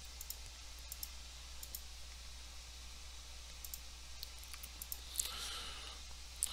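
Faint computer mouse clicks, a dozen or so scattered clicks at irregular spacing, over a low steady electrical hum.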